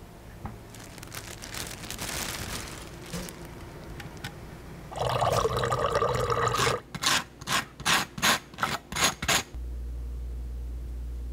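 Water poured into a drinking glass, the pour swelling from a thin trickle to a loud, full rush about five seconds in. It breaks into a quick run of about eight short, sharp sounds, and then a steady low hum takes over near the end.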